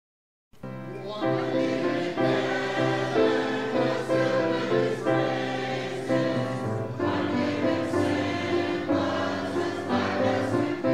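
A church praise team choir singing a gospel hymn, starting about half a second in.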